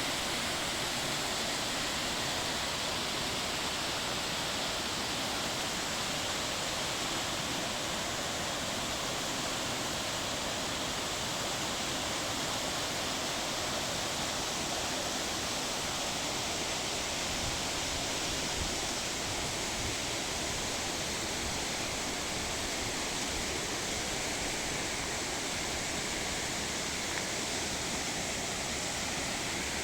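Small waterfall where two streams join, water rushing steadily down slide-like rock chutes.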